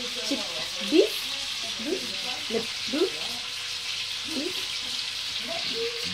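Steady sizzle of food frying in a pan on a kitchen stove.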